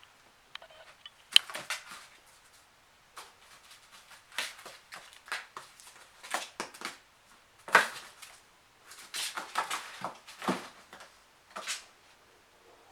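Irregular series of short clicks, scrapes and crunches, some clustered, the sharpest about a second in and near the middle.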